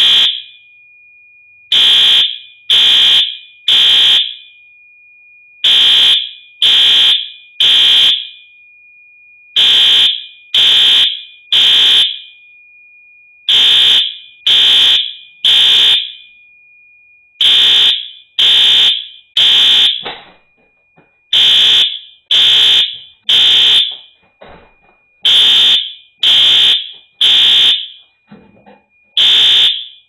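Fire alarm horns sounding the temporal-three evacuation pattern: three loud beeps, a pause, repeating about every four seconds, with a faint steady tone underneath. A false alarm set off by fog machine haze reaching the detectors.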